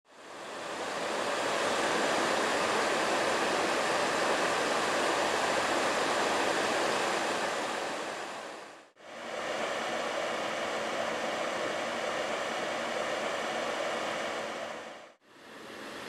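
Small 12-volt computer case fan running, blowing air through the aluminium fins of a ceramic heating element: a steady whoosh with faint steady tones. It fades out and back in twice.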